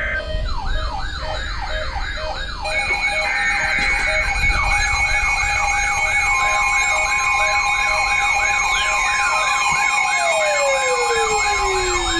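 Several electronic sirens sounding at once: a fast up-and-down yelp at about three sweeps a second, a higher warble and steady tones, with long falling wails coming in during the second half.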